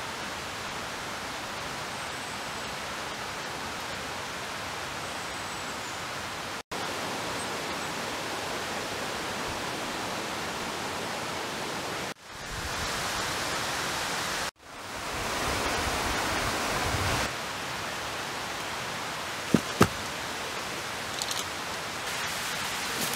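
Steady rushing of flowing water, like a forest stream, breaking off briefly at three cuts and swelling louder for a few seconds in the middle. Two sharp clicks close together come near the end.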